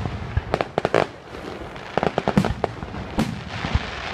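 Fireworks display: aerial shells bursting in a quick run of sharp bangs, in clusters about a second apart, with a hiss near the end.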